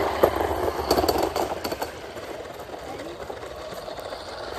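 Kick scooters rolling over rough pavement, their small wheels rattling, with a scatter of sharp clicks and knocks in the first couple of seconds.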